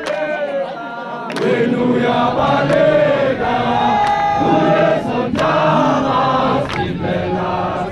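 A large crowd of marathon runners singing together in a chant, many voices in unison, growing louder about a second and a half in.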